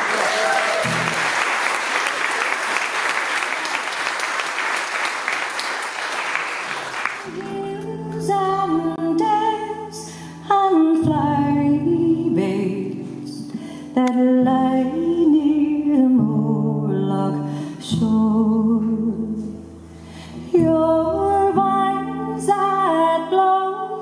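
Audience applause for about seven seconds, then a woman starts singing, accompanying herself on acoustic guitar.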